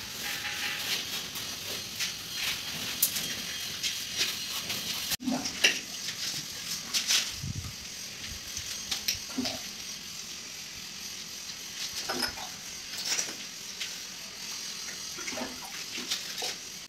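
Hand trowel scraping and patting wet mortar as it is spread and levelled over a concrete counter base, with scattered short scrapes and light knocks over a steady hiss.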